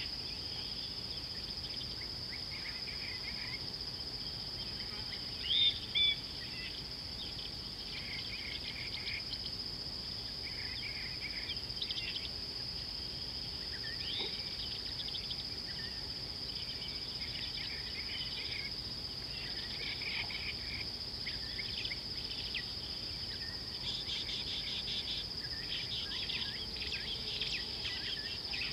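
Insects keep up a steady high-pitched drone, with birds calling on and off over it. There are two louder short calls about six seconds in.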